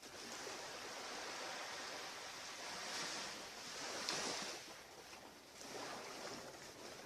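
Ocean surf washing up a beach: a steady rush that swells about three to four seconds in and again near six seconds.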